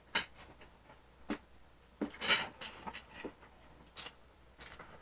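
Close-miked eating sounds of a large hamburger being bitten and chewed: scattered wet mouth clicks and smacks, with a louder crunchy burst a little over two seconds in.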